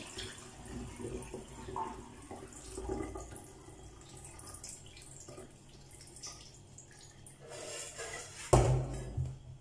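Rinse water trickling and dripping from a bowl of washed glutinous rice into a stainless steel sink as the rice is drained. A sudden dull thump near the end is the loudest sound.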